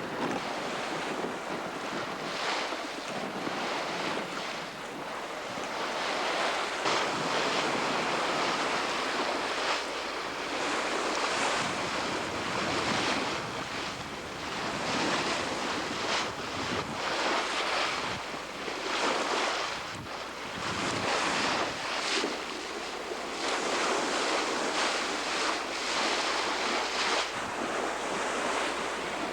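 Wind buffeting the microphone over the rush of large ocean swells and water streaming past a sailboat's hull at speed, surging louder and easing every few seconds.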